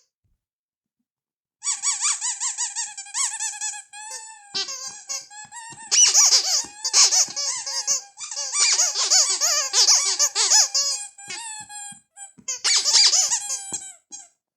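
Rubber squeaky toy squeezed over and over, giving quick, high squeaks that waver in pitch. They start about a second and a half in and run on in long strings with short breaks.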